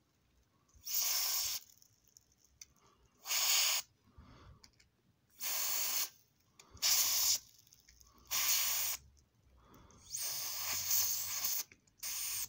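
Aerosol lubricant spray can with a straw nozzle hissing in about seven short bursts, each half a second to a second and a half long, as lubricant is sprayed into a stiff-turning puzzle cube.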